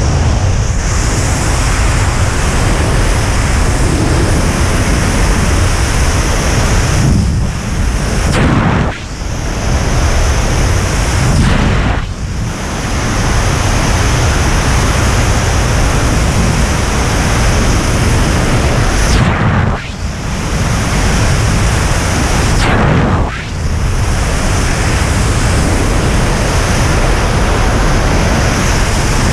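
Freefall wind rushing over a helmet camera's microphone: a loud, steady roar that dips briefly about five times.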